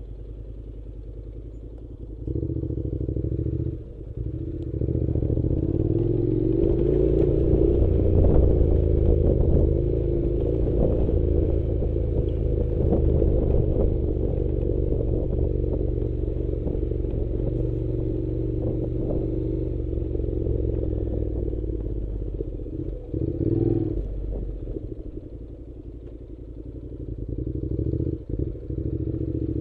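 An engine running steadily, louder from about two seconds in, easing off for a few seconds near the end and then picking up again.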